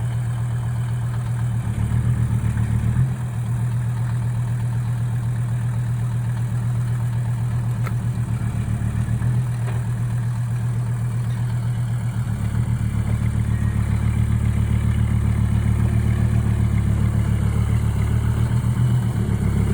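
Lada Niva's diesel engine running at a steady low speed, picking up briefly about two seconds in and again, more lastingly, from about twelve seconds on.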